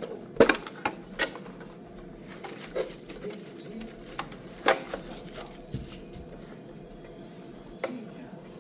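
Handling noise: a few irregular sharp clicks and knocks, the loudest about half a second in and another near the middle, over a steady low background.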